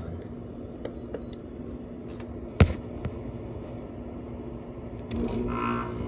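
GE 6000 BTU window air conditioner running with a steady hum, its fan one that the owner suspects is going out. A single sharp knock comes about two and a half seconds in, and a little after five seconds the running gets louder and fuller.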